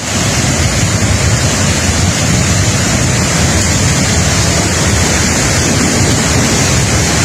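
Floodwater from an overflowing stream rushing in a steady, loud torrent, with a low rumble beneath the hiss.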